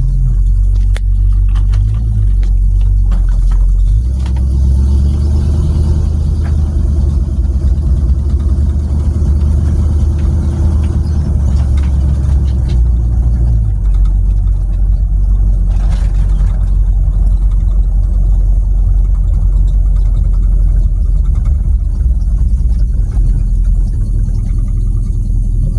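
Car engine idling, heard inside a cabin stripped to bare metal with no interior trim, a low steady rumble; the engine note shifts for a stretch from about 4 to 13 seconds in.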